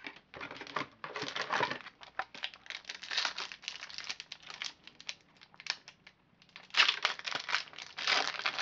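Foil trading-card pack wrapper crinkling in irregular spurts as it is handled and opened.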